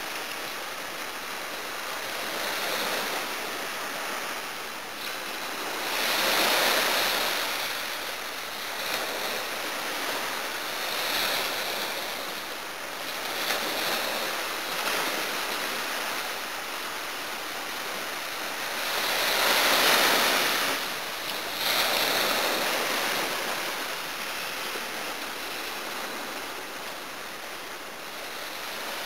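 Small sea waves breaking and washing up a beach, the surf noise swelling and fading, loudest about six seconds in and again around twenty seconds.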